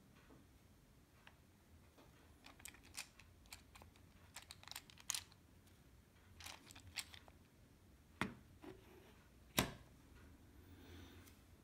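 A small hard token case being handled: scattered light clicks and taps as it is picked up and turned over in the hands, then two knocks as it is set back down on a wooden table, the second the loudest.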